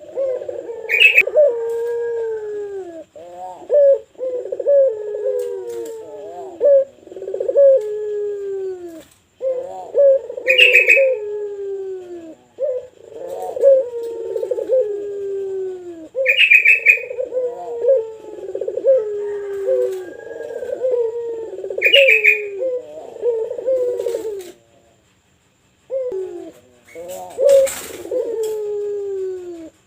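Puter pelung dove cooing steadily in long phrases of low, falling notes. Brief higher chirps come roughly every six seconds, and a sharp click sounds near the end.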